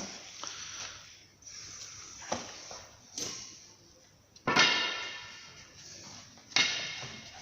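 Metal tools and suspension parts clanking against each other, a few light knocks and then two louder clangs that ring on briefly, one about halfway through and one near the end.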